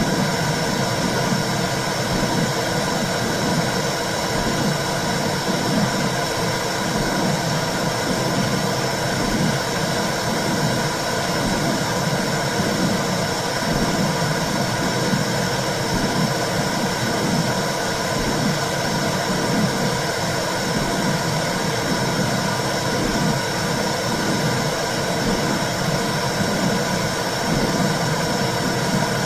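Womb sound: a steady low whooshing noise with a slow, regular pulse in the low range, like blood flow and heartbeat heard from inside the uterus.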